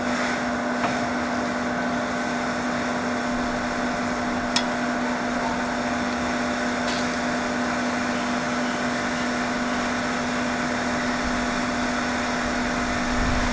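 Gas hissing steadily out of an inverted gas can into a WE SCAR gas-blowback airsoft magazine as it is filled, with a steady whistle-like tone running through the hiss. A faint click sounds twice, about four and a half and seven seconds in.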